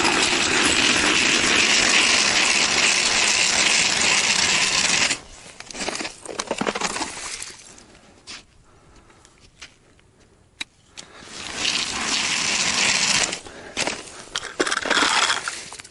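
Hand-cranked ice auger boring through lake ice: a steady grinding scrape for about five seconds, then scattered knocks and crunches of ice, and a second shorter bout of scraping about twelve seconds in.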